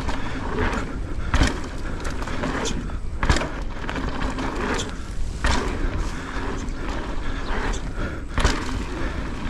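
Santa Cruz Megatower mountain bike riding down a dirt jump trail: steady rolling rumble and rattle from the tyres and frame, broken by four sharp thumps spread across the run.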